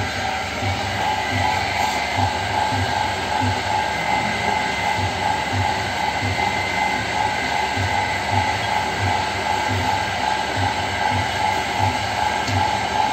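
Spinning potter's wheel: a steady mechanical hum with a low knock repeating evenly, a little under twice a second.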